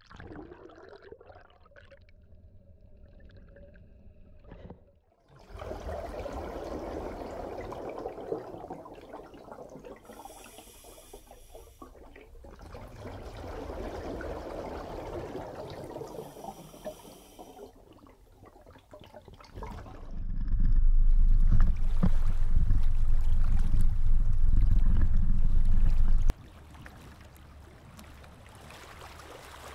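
Muffled water sloshing and bubbling around a camera at and below the water surface. About two-thirds of the way in, a much louder low rumble comes in for about six seconds, then cuts off suddenly.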